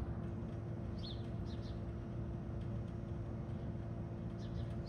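A small bird chirping a few short times over a steady low outdoor rumble with a faint constant hum.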